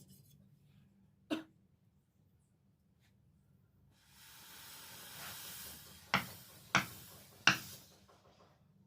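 A hammer striking the steel blade: one blow about a second in, then three blows about two-thirds of a second apart near the end, over a soft rushing hiss.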